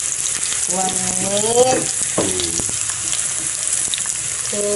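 Pork pieces sizzling steadily in hot cooking oil in a non-stick frying pan, stirred and turned with a silicone spatula.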